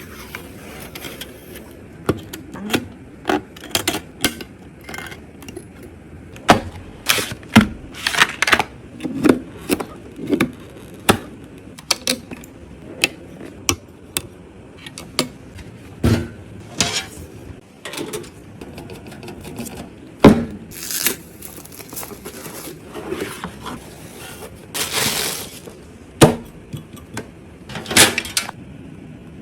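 Computer parts being handled and fitted together: irregular sharp clicks, knocks and short scrapes, some much louder than others.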